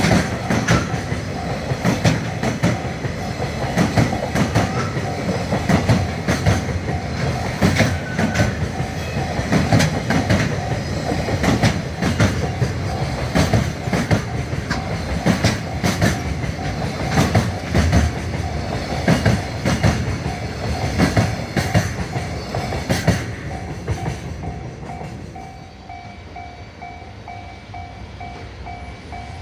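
Freight train passing close by, its wheels clattering over the rail joints in a long run of knocks, fading after about 24 seconds. A level-crossing bell rings steadily throughout, clearer once the train has gone by.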